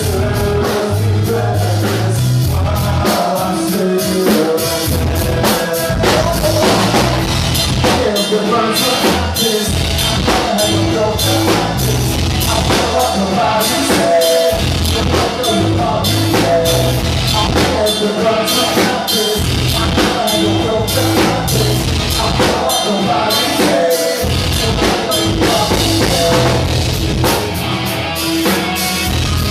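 Punk rock band playing live, with a drum kit keeping a steady beat under guitars and bass, loud and continuous, during a sound check.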